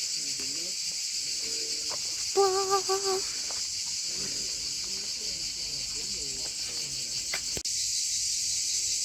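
Insects chirring in a steady, high-pitched chorus that does not let up.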